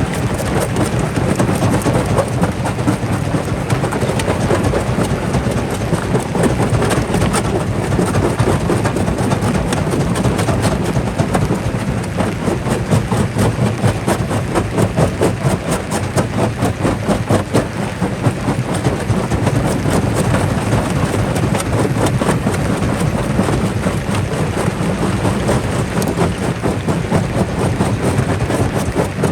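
Jaw crusher breaking rock: a dense, unbroken crunching and cracking of stone over the steady low drone of the machine.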